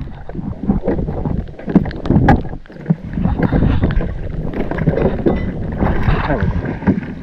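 Wind buffeting the microphone and choppy water slapping against a kayak's hull, while a hooked fish thrashes and splashes at the surface on a taut fishing line.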